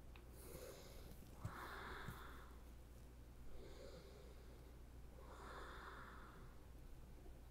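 Faint, slow breathing, with soft swells about every four seconds, over a low steady hum.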